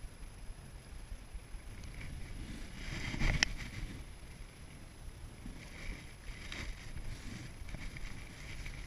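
Wind buffeting the microphone, with clothing rustle and the handling of a spinning rod and reel. A sharp click comes about three and a half seconds in.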